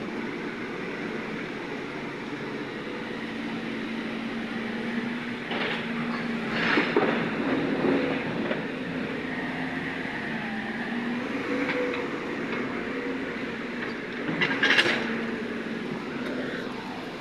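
JCB tracked excavator running steadily with a held engine tone, with several loud clanks and scrapes of metal on rock and rubble, the loudest about a third of the way in and again near the end.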